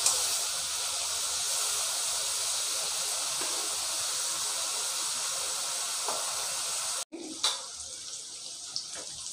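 Sliced mushrooms sizzling in mustard oil in a steel kadai, a steady hiss as they cook in the water they have let out. It cuts off abruptly about seven seconds in, then goes on more quietly.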